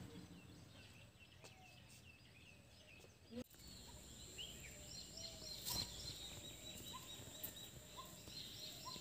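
Faint birdsong: several birds giving short chirping calls, with one repeating a brief upward note about once a second near the end.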